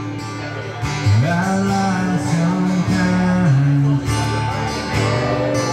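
Live duo of strummed acoustic guitar and electric guitar playing a country-style song, with a man's low sung melody of long, gliding notes.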